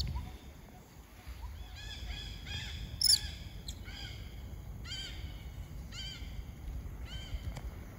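A series of short, high, arching animal calls, roughly one or two a second, the loudest about three seconds in, over a low rumbling noise.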